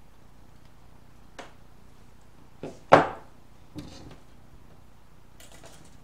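Handling sounds of needle-nose pliers and an LG direct-drive washing-machine motor stator on a wooden bench: a light click, then a louder knock with a short rattle about three seconds in, and a smaller knock just before four seconds.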